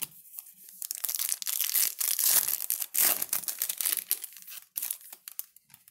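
A trading-card pack wrapper crinkling and tearing as it is handled: a dense run of crackles, loudest around two to three seconds in, that dies away near the end.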